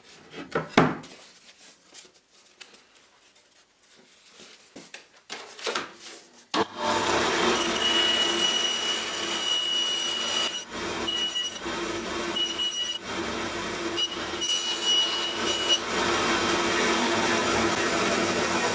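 Wooden boards being handled, with a sharp knock about a second in. Then a bandsaw cuts in suddenly and runs steadily, cutting a sheet of laminated wood veneer into strips, with a high whine coming and going during the cut.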